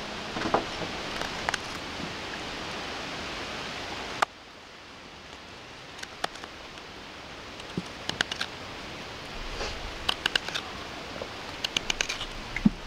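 Knife carving the bowl of a wooden spoon: short scraping cuts and sharp clicks of the blade in the wood, coming in small clusters, over a steady background hiss that drops suddenly about four seconds in.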